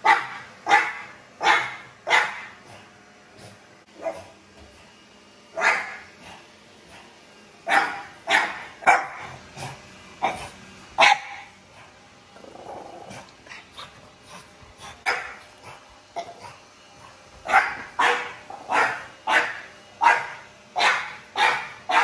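French bulldog barks at a robot vacuum cleaner: sharp barks in bursts, thinning out to a lull midway, then a quick run of about one bark every 0.7 seconds near the end.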